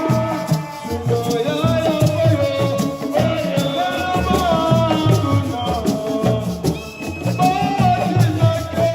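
Music: a melody with sliding notes over steady percussion, including a shaker-like rattle.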